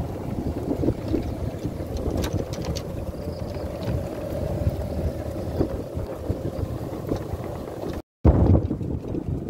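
Golf cart riding along a paved cart path: a steady low rumble from the cart, with wind buffeting the microphone and a faint steady hum. The sound cuts out for a moment near the end.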